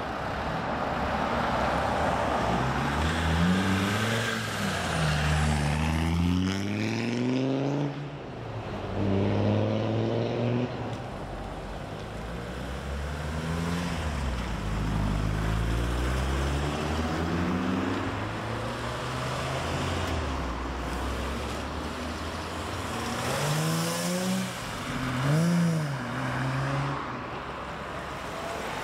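Cars and 4x4s pulling away one after another, each engine note rising in pitch as it accelerates and then fading as it passes. A short hiss comes late on.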